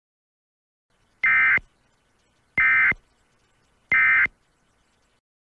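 Emergency Alert System end-of-message data tones: three short, identical buzzing bursts, evenly spaced a little over a second apart. This is the SAME code that closes an EAS alert.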